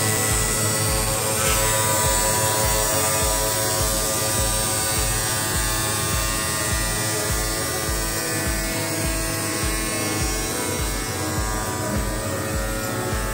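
CNC three-blade tile cutting machine running steadily, its saw motors and water-cooled blades whirring through tile, with a background music beat thumping about twice a second underneath.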